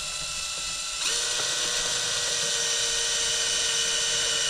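Cordless drill running at high speed with a steady whine as it bores a hole in the dashboard trim beside the steering column. It speeds up and gets louder about a second in, then holds steady.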